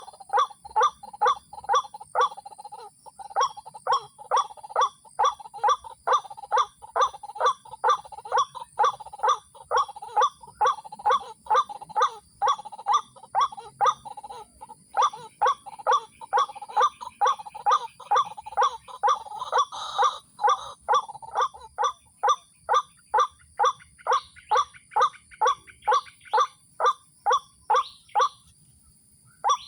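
White-breasted waterhen calling: a long run of harsh, evenly repeated 'kruak' notes, about two and a half a second. The run breaks briefly around the middle and stops shortly before the end.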